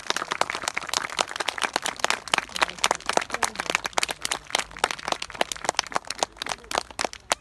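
A small crowd applauding by hand, a dense patter of irregular claps that starts to thin out near the end.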